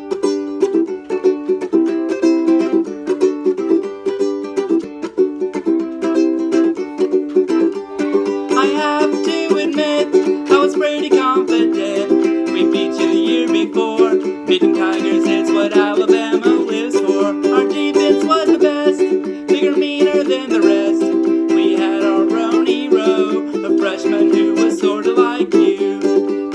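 Ukulele strummed in a steady rhythm of chords. From about eight seconds in, a man's voice sings along over the strumming.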